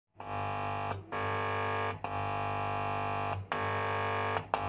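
Music: a distorted, held synth or guitar chord played over and over. Each chord lasts about a second, with short breaks between them.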